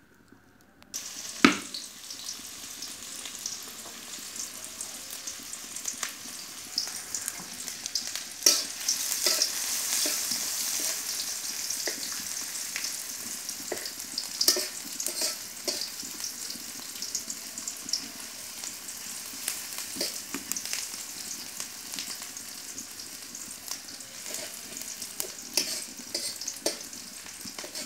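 Chopped onions sizzling as they fry in hot oil in an aluminium pot, a spatula scraping and tapping against the pot as they are stirred. The sizzle starts about a second in, with a sharp knock soon after.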